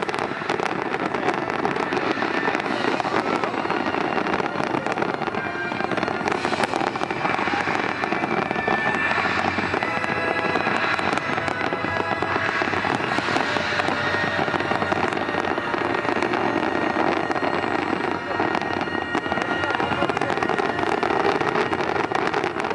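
Fireworks barrage, many shells bursting and crackling in close succession without a pause.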